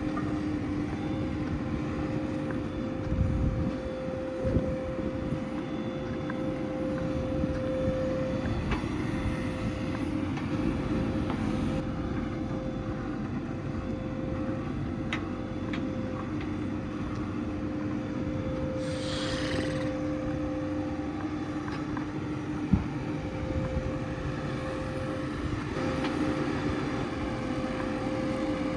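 Diesel engine of earthmoving machinery running at a steady speed, with a few knocks, a short hiss about two-thirds of the way in, and a single sharp clank a little past three-quarters.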